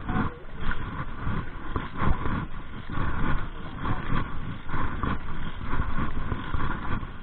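Wind and sea noise on a small outrigger boat at sea, coming in irregular gusts and swells.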